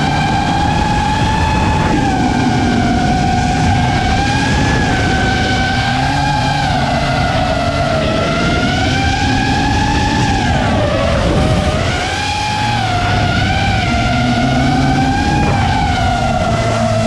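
FPV quadcopter's electric motors whining, the pitch rising and falling with the throttle and dipping sharply about eleven seconds in. A lower engine note runs underneath.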